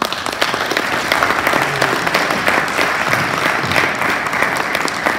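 Audience applauding: a dense round of clapping that starts suddenly and holds steady.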